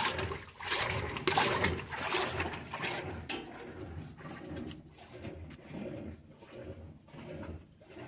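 Easy 17 kg top-loading washing machine running, its agitator sloshing the water in rhythmic swishes about one and a half times a second, softer after about three seconds.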